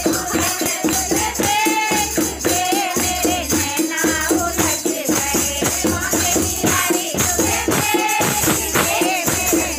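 Hindu devotional kirtan: a group of women singing a bhajan over a steady rhythm of hand clapping and jingling percussion.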